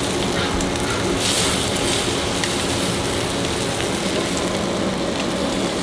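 Bacon sizzling on a hot flat-top griddle as a bacon-wrapped burrito sears: a steady hiss with small crackles, over a faint steady hum.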